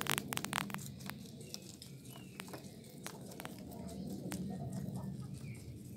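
Several rabbits nibbling and tearing at fresh spinach leaves: a quick run of small crisp clicks in the first second, then scattered single clicks of biting and leaf tearing.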